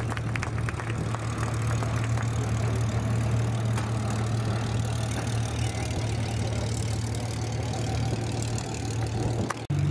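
Supermarine Spitfire Mk I's Rolls-Royce Merlin V12 engine running at low power as the fighter rolls out after landing, a steady low drone. It cuts off abruptly near the end.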